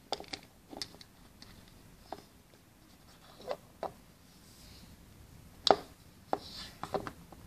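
Irregular light taps and knocks of plastic Schleich horse figures being handled and set down on wooden floorboards, the loudest knock about two-thirds of the way through.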